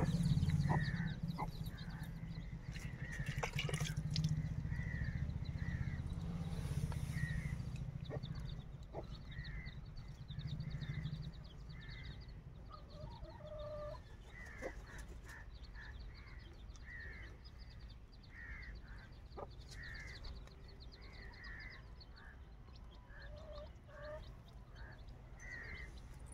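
Birds calling in the background, short calls repeating about once a second, over a low rumble that fades after the first ten seconds or so. A few faint clicks are heard now and then.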